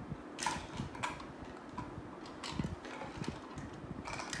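Small plastic toys clicking and knocking as they are picked up and handled, a few separate sharp clicks spread through the few seconds, over a faint steady hum.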